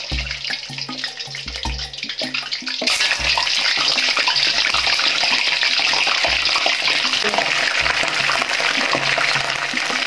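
Chicken drumsticks deep-frying in hot oil in a wok, with a steady sizzle. About three seconds in the sizzle suddenly becomes much louder and fuller as another piece of chicken goes into the oil, and it keeps on at that level.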